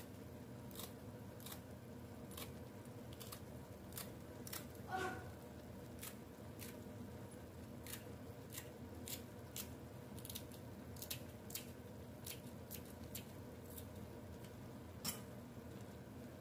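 Kitchen scissors snipping green onion into a pot of fish cake soup: a string of sharp snips, roughly one every half second to second, over a faint steady hum. About five seconds in there is a brief ringing clink.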